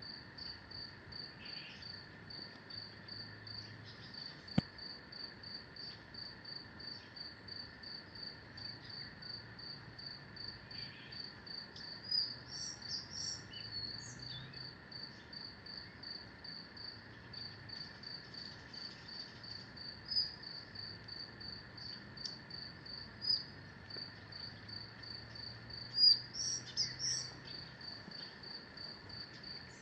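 An insect chirping steadily in rapid, evenly spaced high pulses, about four a second, over a constant background drone of other insects. A few short bird calls break in about twelve seconds in and again near the end, and there is one sharp click early on.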